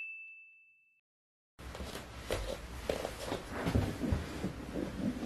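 A single high electronic ding fades out over about a second, followed by a brief dead silence. Then room sound returns with soft, irregular knocks and shuffles.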